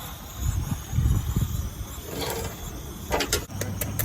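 Wind buffeting the microphone in low rumbling gusts, then a quick cluster of sharp clicks and taps near the end.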